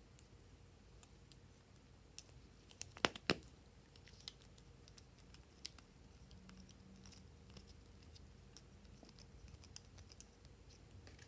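Plastic glue sticks and their caps being handled, giving small plastic clicks and taps, with a cluster of sharper clicks about three seconds in.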